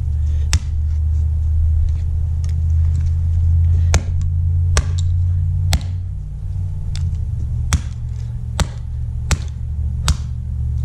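A run of sharp, irregular knocks, about eight strikes roughly a second apart, from a hammer hitting a Timex alarm clock's casing, over a steady low hum.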